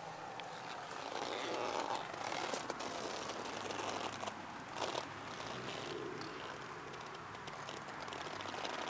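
Rustling and crunching handling noises with a few sharp clicks, the loudest about two and a half and five seconds in.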